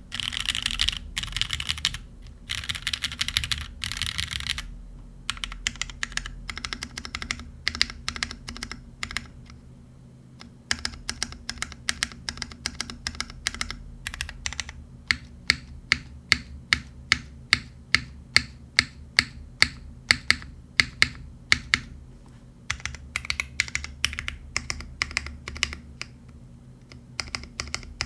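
Typing on a B60 custom mechanical keyboard with lubed, filmed Cherry Vintage Black linear switches in a top-mount aluminum plate under GMK Oni keycaps. A fast burst of typing gives way to slower strokes, then to about a dozen evenly spaced single key presses about two a second past the middle, before ordinary typing resumes near the end.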